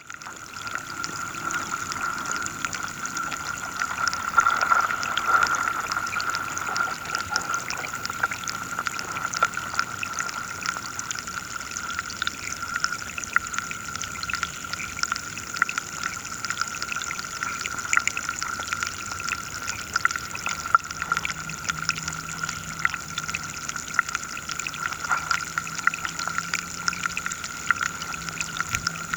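Underwater sound of a river: dense, continuous crackling and ticking over a steady hiss of moving water.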